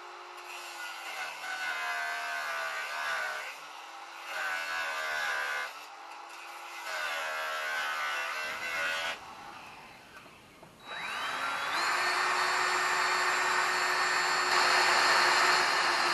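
Angle grinder cutting into a rusted steel exhaust pipe in three bursts, its pitch sagging each time the disc bites. About two-thirds through, a cordless drill spins up with a rising whine and runs steadily, and there is a sharp knock at the very end.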